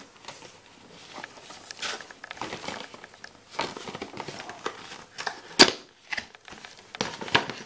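Cardboard gift box with a clear plastic window being turned over in the hands and opened: scattered rustling, crinkling and small clicks of card and plastic, with one sharp snap about two-thirds of the way through.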